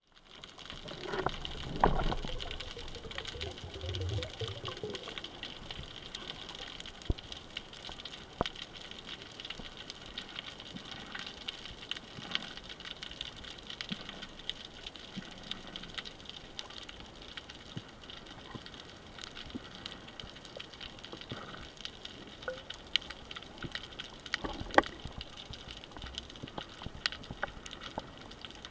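Underwater sound picked up by a camera in its housing: a steady hiss of water with many scattered sharp clicks and crackles, and a louder stir of moving water in the first few seconds.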